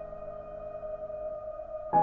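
Calm ambient background music: a held chord dies away slowly, and the next chord is struck near the end.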